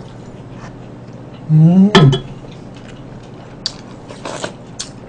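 Scattered light clinks and taps of a wooden ladle, chopsticks and a spoon against ceramic bowls and a stew pot during a meal. A short rising vocal sound, with a sharp clink, comes about one and a half seconds in.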